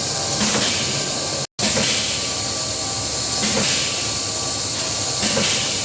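Çeçil cheese forming machine running, a steady hiss with a surge about every second and a half to two seconds. The sound cuts out for a moment about a second and a half in.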